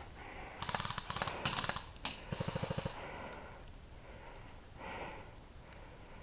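Airsoft electric gun firing several short full-auto bursts, a rapid rattle of about fifteen shots a second, in the first three seconds, with a single sharp click between bursts.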